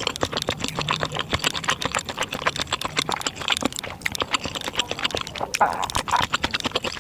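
Close-miked eating sounds of bakso in spicy broth: rapid wet chewing and mouth clicks, with a short rushing sound lasting about half a second a little before the end.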